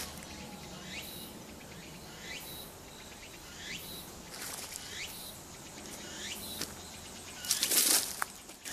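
Woodland ambience: short downward-sweeping chirps repeat about once a second over a steady hiss. Near the end, footsteps crunch through dry leaf litter.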